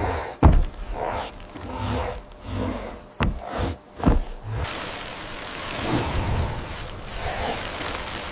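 Knocks and dull thuds of heavy wooden logs being handled and set into a frame, with a few sharp knocks in the first half. These give way to a softer, even rustling in the second half.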